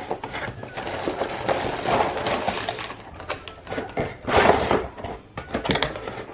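Plastic dough cans being pulled one by one out of a cardboard holder tray: cardboard scraping and rustling with light plastic knocks. The loudest scrape comes a little past the middle.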